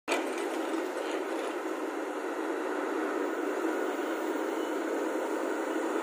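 Volvo tracked excavator running steadily as it tips a bucket of soil into a steel tipper truck body and swings back, a continuous mechanical noise with no distinct strikes.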